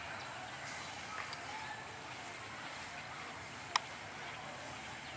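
Open-air station ambience: a steady high insect-like buzz with scattered faint bird chirps and far-off voices. One sharp click sounds a little under four seconds in.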